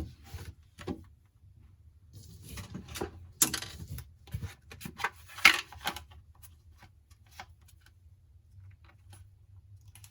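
Small tools and phone parts being handled at a bench: scattered clicks, taps and rustles, busiest in the middle, over a faint low hum.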